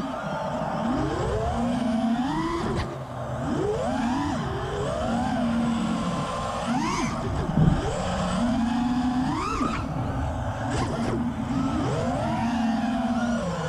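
5-inch FPV freestyle quadcopter's four Apex Racing Hornet 2306.6 2555KV brushless motors with HQ Ethix P3 props, whining up and falling back in pitch with each throttle punch every two seconds or so, and dropping to a lower steady hum between punches. There is a short thump a little past halfway.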